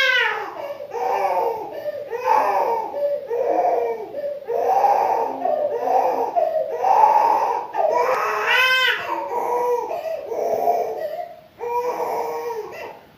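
A toddler crying in a run of sobbing cries about a second apart, with one loud, high wail about two-thirds of the way through; the crying breaks off near the end.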